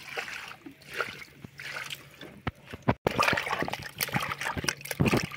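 Water trickling from a plastic jug into a pot of raw meat chunks. About three seconds in it turns to louder splashing as hands rub and wash the meat in the water.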